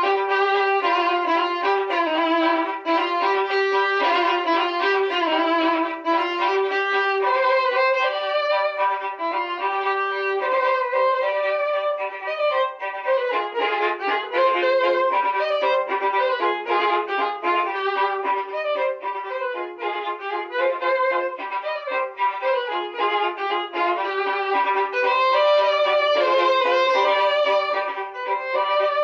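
Two violins playing a duet.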